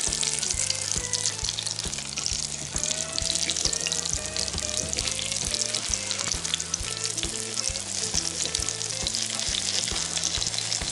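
Zucchini fritters sizzling steadily in hot oil on a flat griddle pan, with background music playing underneath.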